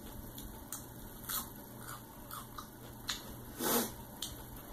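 Close-miked food handling: soft squishes, small clicks and rustles of lettuce and tomato being pressed back onto a cheeseburger, with one louder rustle about three and a half seconds in.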